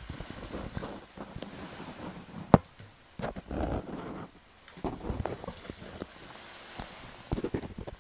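Close-miked ASMR ear-cleaning sounds: irregular scratching and rustling with scattered sharp clicks, the sharpest about two and a half seconds in, over a soft steady hiss of ocean-wave white noise.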